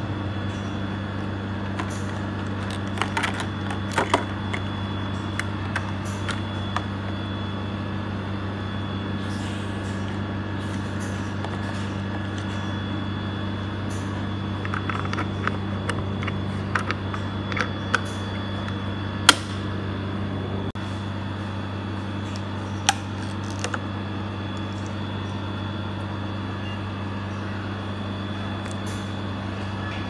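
Steady low machine hum with a faint high whine throughout. Over it, a clear plastic blister pack and sensor cassette crackle and click as they are handled: bursts of crinkling a few seconds in and again around the middle, then two sharp single clicks in the second half.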